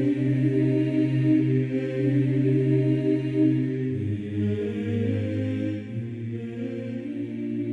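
Slow background music of held, chant-like voices, with the low note dropping to a deeper one about halfway through.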